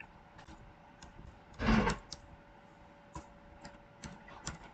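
Computer keyboard keys clicking one at a time as a number is typed in, about a dozen scattered clicks. A short, louder breath-like rush of noise comes a little under two seconds in.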